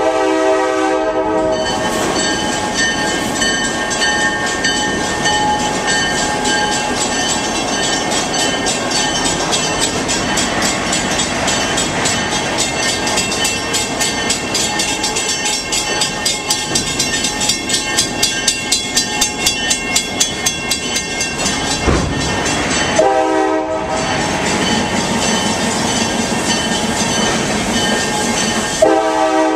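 Riding in an open-air coach of a slowly moving heritage train: steady rumble and wheel noise, with the locomotive's horn sounding three times, at the start, about two-thirds through, and again near the end. A stretch of rhythmic ticking runs through the middle.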